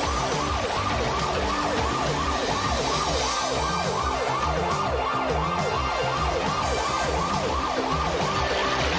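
Police car sirens in a fast yelp, the pitch rising and falling about four times a second without a break, over a low rumble.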